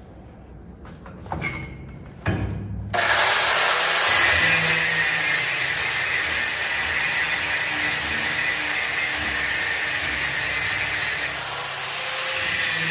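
Stick (arc) welding: a couple of knocks as the rod is struck, then the arc catches about three seconds in and crackles loudly and steadily, easing off briefly near the end before picking up again.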